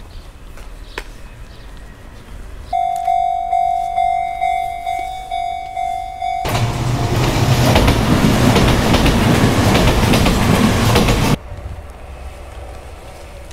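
A railway level-crossing bell rings, struck about twice a second, and then a train passes close by, loud and rattling. The train's sound cuts off suddenly.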